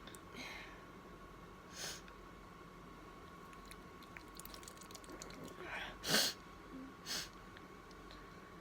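A woman sneezing: a few short breathy bursts, then an intake of breath leading into a sharp sneeze about six seconds in, followed by a smaller burst about a second later.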